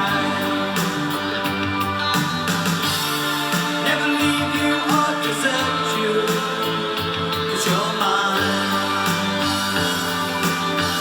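Synth-pop band music playing: a full mix of guitar, synthesizer and a steady drum beat, with some singing.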